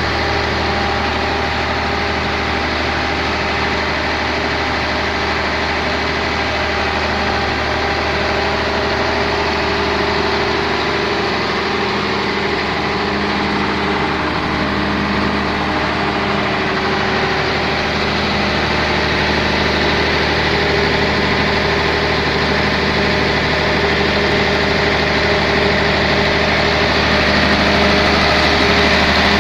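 Volvo Penta 300 kVA open-type diesel generator set running steadily at constant speed.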